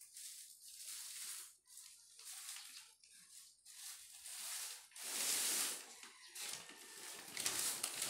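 Crinkling and rustling of a crumpled plastic sheet as a toddler's hands grab and pull at it, in irregular bursts, loudest about five seconds in.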